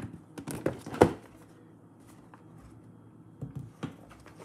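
Thick cardboard board-game box being handled as its lid is lifted off: a few short knocks and scrapes of cardboard in the first second, a quiet stretch, then a couple more knocks near the end.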